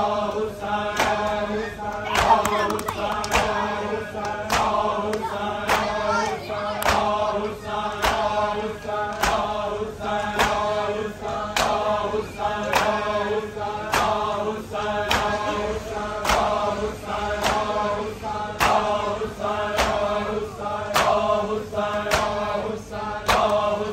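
A group of voices chanting a Shia noha lament in unison, over a steady beat of sharp strikes from matam, hands beating on chests in time with the recitation.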